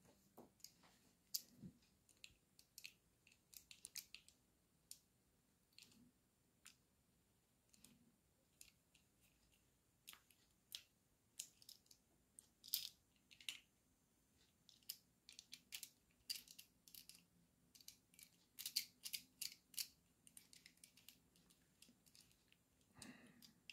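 Faint, irregular small clicks and scrapes of a small screwdriver turning screws into the black plastic switch housing of an electric kettle.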